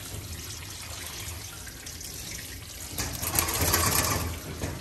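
Water running from a grooming tub's hose sprayer as a wet Yorkie puppy is rinsed; the spray grows louder for about a second and a half near the end.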